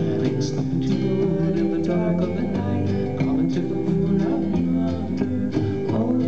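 Live band playing a song: guitars and drums with sung vocals, steady throughout.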